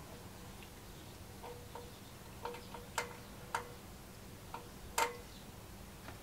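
Irregular light clicks and taps, about a dozen spread unevenly, the loudest about three and five seconds in. They come from a small hand tool working at the bias setting on a power amplifier's board inside its metal chassis. A faint steady hum runs underneath.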